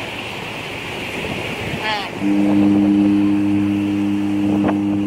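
Water rushing and churning along a large cargo ship's hull as it ploughs into the shallows, with wind on the microphone. About two seconds in, a ship's horn sounds one steady, deep, chord-like blast lasting about three seconds.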